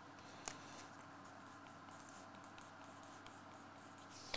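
Faint scratching of a pen writing on a paper slip, with one short click about half a second in.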